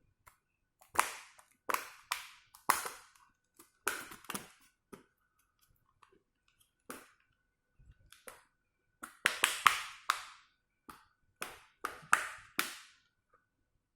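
Plastic back shell of an Ntablet being pried off along its frame, its clips snapping loose in a series of sharp, irregular clicks.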